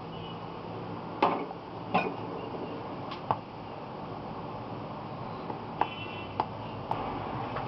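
A mixing utensil knocking against a mixing bowl while thick muffin batter is stirred together: about six sharp, irregular knocks, the loudest around one and two seconds in, over a low steady hum.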